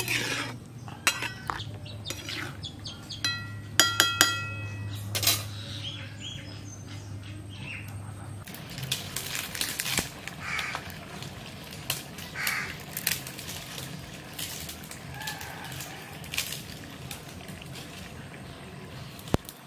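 Metal spatula clinking and scraping against a metal wok of simmering curry over a steady low hum, with a few sharp ringing strikes about four seconds in. From about eight seconds in the hum stops, leaving outdoor ambience with scattered light clicks and a couple of short bird calls.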